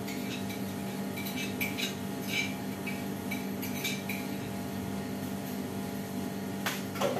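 Dishes and utensils clinking and clattering while being washed and handled at a kitchen sink, a run of light clinks with brief ringing in the first few seconds and one louder clatter near the end. A steady low hum runs underneath.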